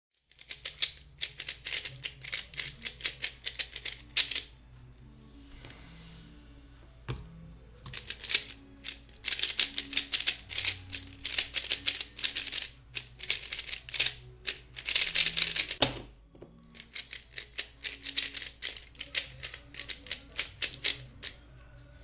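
A plastic 3x3 speedcube being turned very fast: a dense, rapid clatter of clicking turns in three bursts, separated by pauses of a few seconds. Two sharper knocks stand out, one in the first pause and one as the second burst ends.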